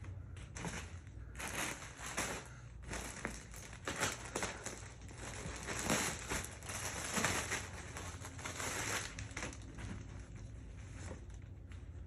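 Packaging crinkling and rustling in irregular handling bursts as clothing is pulled out and unwrapped. The rustling dies down about three-quarters of the way through.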